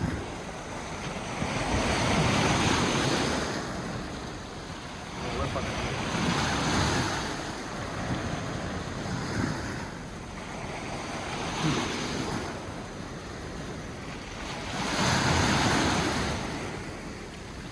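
Sea waves breaking and washing on the shore, coming in slow surges every few seconds, with wind rumbling on the microphone.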